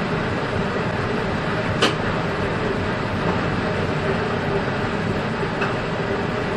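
UTA FrontRunner commuter train running at speed, heard from the front of the leading car: steady rolling noise of wheels on rail, with one sharp click about two seconds in and a fainter one near the end.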